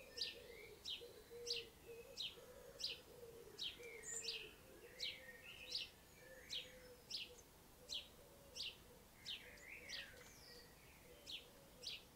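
Faint bird chirping: a short, high, downward chirp repeated about twice a second, over a faint low hum.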